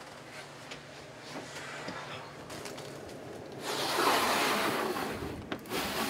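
A sliding window shade pulled across a hull window by hand: a sliding noise lasting about a second and a half, starting a little past halfway through, then a couple of sharp clicks as it stops.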